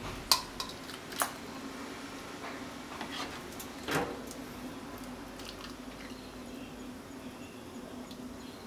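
Miso soup being ladled from a pot into a soup bowl with a plastic ladle: a few light knocks of the ladle against the pot and bowl, the sharpest just after the start, and soft sloshing and squishing of soup, over a steady low hum.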